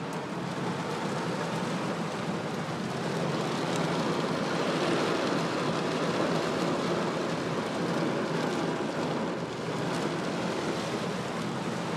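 Steady rushing noise of heavy, windswept rain around a car, with no clear rhythm or tone.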